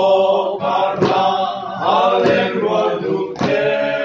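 A group of men and women singing a Mizo song together in chorus, with a sharp knock marking the beat a little more than once a second.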